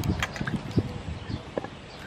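Water sloshing and splashing in a stainless steel bowl as hands scrub vegetables in it, with irregular light knocks of produce and hands against the bowl.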